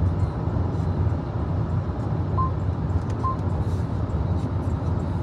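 Steady low road and wind noise inside the cabin of a Haval H6 HEV cruising at motorway speed. Two short electronic beeps come about a second apart near the middle.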